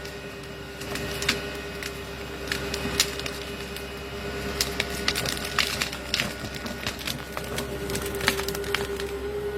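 Wood cracking and splintering in a string of sharp snaps, over the steady hum of a running machine.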